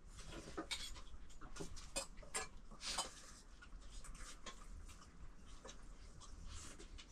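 Faint, irregular clicks and light taps, a few every second, over a low background hum.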